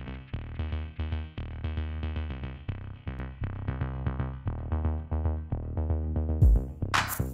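Electronic background music with a drum-machine beat and heavy bass; sharper drum hits come in near the end.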